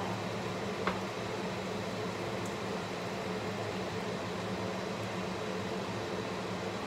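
Kitchen range hood exhaust fan running with a steady hum and rush of air. There is a single light knock about a second in, from a wooden spatula stirring in the pan.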